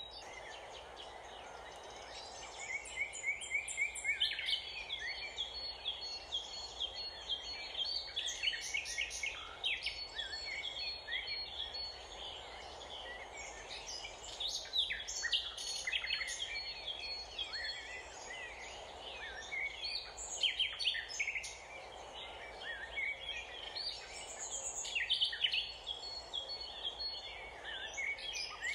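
Small birds chirping and singing in a busy, overlapping chorus of short high calls and trills, over a steady outdoor background hiss.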